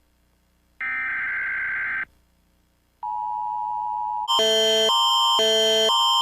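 Emergency Alert System alarm sequence: a buzzy data-like burst about a second long, then a steady single tone, then a louder alert tone that switches between two pitches about twice a second.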